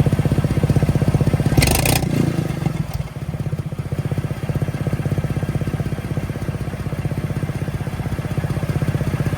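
Engine running with a fast, even exhaust pulse, the puffing of an exhaust leak. A brief hiss comes about a second and a half in, and after about three seconds the engine settles a little quieter.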